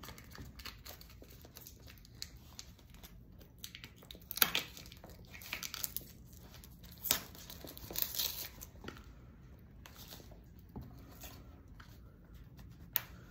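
Cardboard shipping tube being picked and torn at by hand at its closed end: short, irregular tearing and crinkling rasps with pauses between them, the sharpest about four and a half seconds in.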